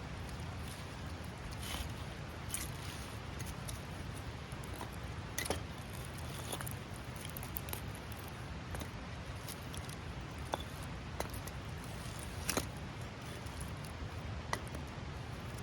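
Wood campfire crackling, with scattered sharp pops at irregular moments, over the steady rush of a snowmelt stream.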